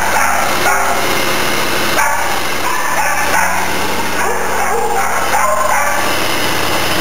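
Many kennelled dogs barking and yipping at once in a continuous overlapping din, with music playing underneath.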